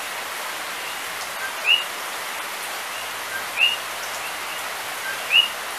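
Coqui frog calling its two-note "co-qui", a low note then a higher rising one, about every two seconds over the steady hiss of rain.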